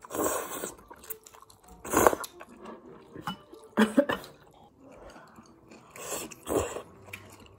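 Close-up eating sounds: a person slurping and chewing strips of dried tofu noodles and vegetables in a spicy broth. Four loud slurps come about two seconds apart, with quieter chewing between.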